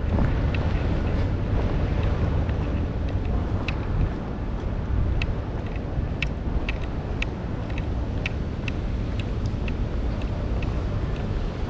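Steady low rumble of wind on the microphone and street traffic during rain, with scattered sharp ticks from about five seconds in.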